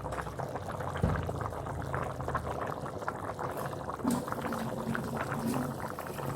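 Food cooking in a pan: liquid bubbling with a steady run of small crackles and pops.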